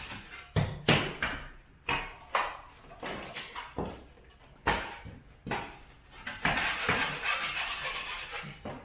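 Irregular sharp knocks and taps, roughly one a second, then a couple of seconds of scraping near the end: hand tools working old plaster cornice loose.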